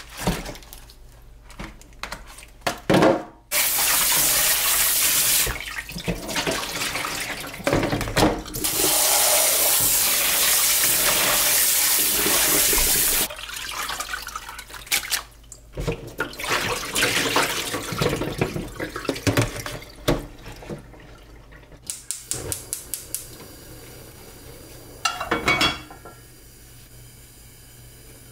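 Kitchen tap water running into a stainless steel sink over raw chicken pieces in a plastic colander, in two long runs, with the clatter of the chicken and colander being handled between them. The sound is quieter near the end.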